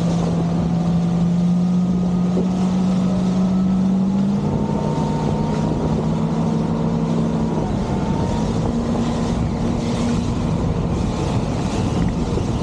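Motorboat engine running at steady speed, with a drone that shifts pitch slightly a couple of times, under wind buffeting the microphone and water rushing past the hull.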